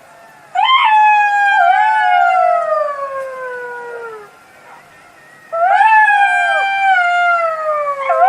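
Jackal howling: three long wails, each rising sharply and then sliding slowly down in pitch. The first begins about half a second in, the second about five and a half seconds in, and the third just at the end.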